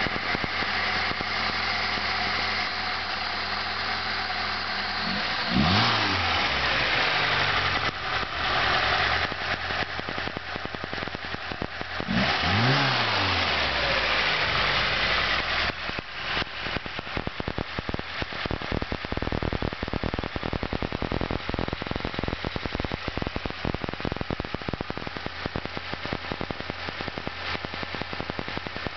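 VAZ four-cylinder carburetted engine built with an OKB 680 sport camshaft, milled cylinder head and lightweight flywheel, idling, then blipped twice with short revs about six seconds apart. After the second rev it settles back to a rapid, pulsing idle.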